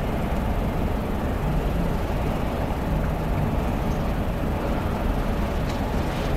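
Steady low rumbling room noise with no speech, an even hum and hiss that does not change.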